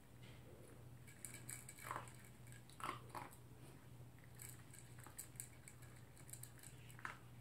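Poodle eating from a plastic bowl: faint, irregular chewing and clicking sounds, spaced a second or so apart.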